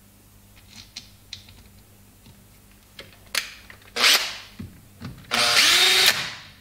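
Cordless drill-driver driving a sealant-coated screw back into a Brose e-bike motor's ECU cover: a few light clicks, a short burst from the driver about four seconds in, then about a second of the driver running before it tapers off.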